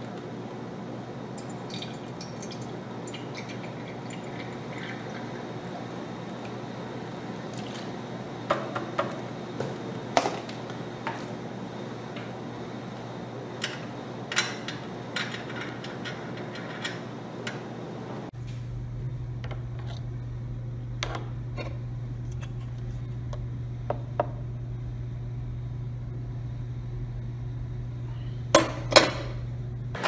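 Water squeezed from a plastic bottle into a small model steam boiler's filler, with light clicks and taps from handling the small metal fittings. About eighteen seconds in, the background changes suddenly to a steady low hum, with a few sharp knocks, the loudest two near the end.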